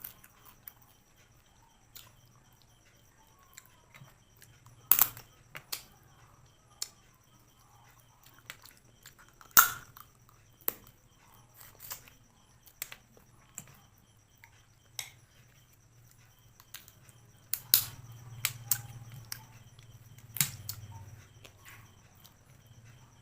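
Close-miked eating sounds: a person biting and chewing, with scattered sharp cracks and clicks and a few much louder snaps spread through.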